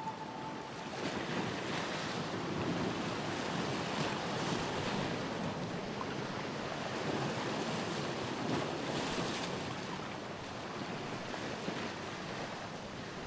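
Sea waves washing against a rocky shore, with wind, swelling and easing every few seconds.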